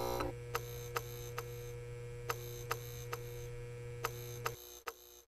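End-screen sound effect of lights switched on: a steady electrical hum with a buzz, crossed by about ten sharp clicks at uneven spacing. The low hum cuts off about four and a half seconds in, leaving a few fainter clicks.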